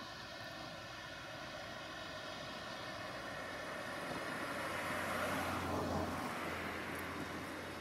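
ROPA Tiger self-propelled sugar beet harvester at work, a steady diesel engine drone mixed with the noise of its machinery. It swells louder about five seconds in, then eases off.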